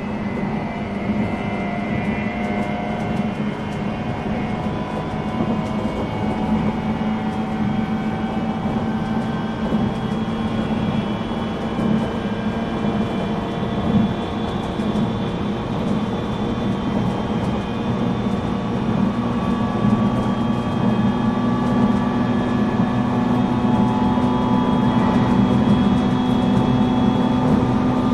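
Running sound inside a JR East 719-series 0-subseries motor car (KuMoHa 719-42), a thyristor phase-controlled AC electric multiple unit: the traction motors hum with several steady tones over rail and rolling noise, growing louder toward the end. This car is known as an 'abnormal-noise car' for its unusual motor sound.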